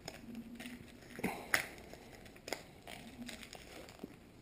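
Small plastic packet of fishing swivels being handled and opened: a few sharp crinkles and clicks of plastic and metal, the loudest about a second and a half in.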